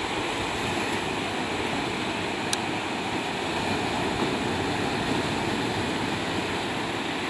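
Steady rush of ocean surf and wind, with one faint click about two and a half seconds in.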